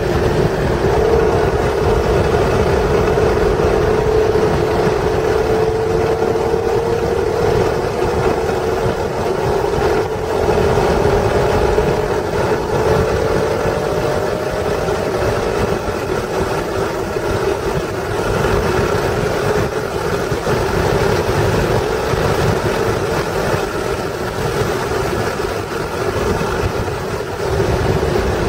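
1996 Acura NSX's stock 3.0-litre V6 engine running hard on track, heard from inside the cabin over steady road and wind noise. Its pitch climbs slowly as the car accelerates through the first half, then drops back as it slows for a corner near the end.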